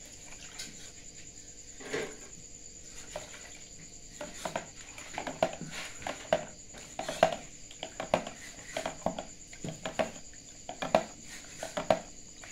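Metal spoon scraping and knocking inside a plastic tub of blood as it is scooped, a run of irregular clinks and taps from about four seconds in. A steady high chirring of crickets runs underneath.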